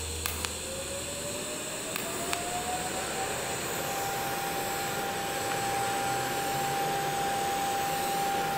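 TIG welding arc burning on thin metal tubing: a steady hiss with a whine that rises in pitch over the first three seconds and then holds steady. The tube is being fused without filler rod.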